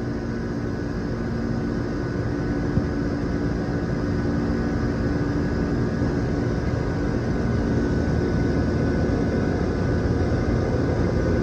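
Goodman 3-ton central air conditioner's outdoor unit running: a steady compressor hum under the rush of the condenser fan, with a few steady tones.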